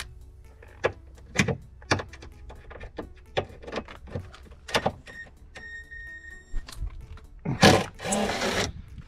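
Cordless driver working screws out of a car door frame: scattered short clicks and knocks of the bit against the fasteners and metal, a steady motor whine a little past halfway, and a louder run of the tool near the end.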